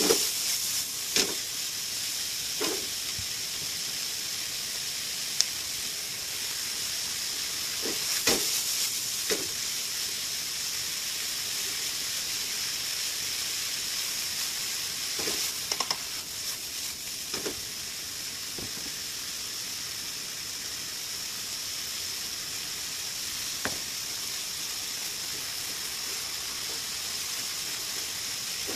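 A stir-fry of pork belly, bamboo shoots and mushrooms sizzling steadily in a non-stick frying pan while wooden spatulas stir and toss it. Every so often a spatula knocks against the pan with a short clack, most of them in the first half.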